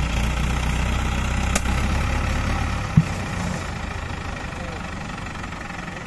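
Mobile crane's diesel engine idling with a steady low rumble; about three seconds in a sharp click sounds and the rumble drops in level.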